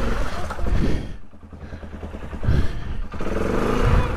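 Polaris ATV engine running under load, easing off about a second in, then revving back up near the end.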